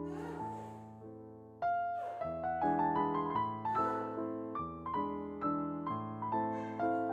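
Background piano music: a gentle melody of single notes and chords, each ringing and fading after it is struck. The music dips briefly about one and a half seconds in, then comes back louder.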